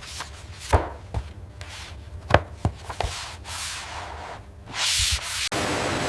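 Hands rubbing and smoothing sheets of wood veneer, with several sharp wooden knocks and taps. About five and a half seconds in, this cuts off abruptly to a steady rushing noise.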